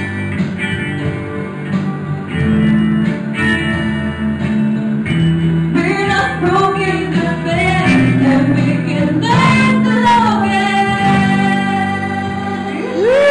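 Small live band playing, with electric guitars and keyboard through small amps. A female voice comes in singing about six seconds in and holds a long note near the end.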